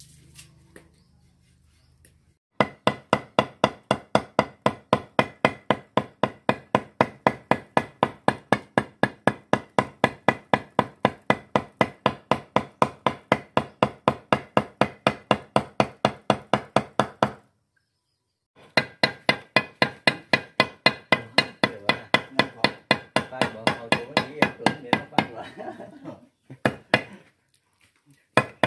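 A heavy cleaver chopping raw duck meat on a thick round wooden block, fast even blows about four a second, mincing the meat for larb. The chopping stops briefly twice, then goes on.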